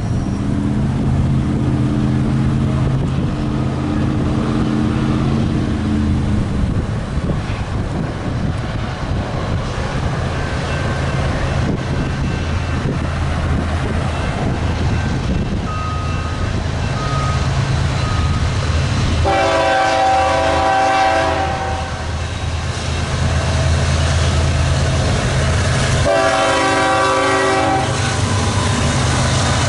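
BNSF diesel locomotives approach with a steady low engine rumble and sound their multi-chime air horn: one long blast about two-thirds of the way in and another near the end, the long blasts of a grade-crossing signal.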